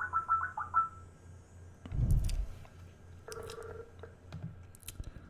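Skype call alert tones from a computer: a quick run of rapid electronic beeps in the first second and a shorter tone pattern a little past the middle. A low thump about two seconds in, with a few clicks near the end.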